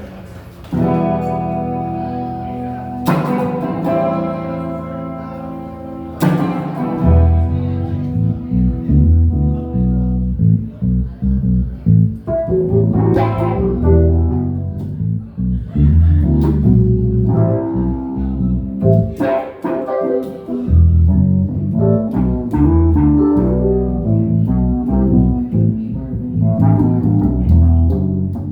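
Instrumental jam on guitar and bass. Three sustained chords are struck and left to ring, then a busy, rhythmic bass line comes in about seven seconds in and keeps going under the guitar.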